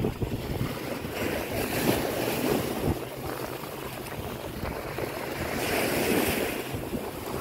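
Wind buffeting the microphone over the wash of surf on a beach, with the surf swelling about two seconds in and again about six seconds in.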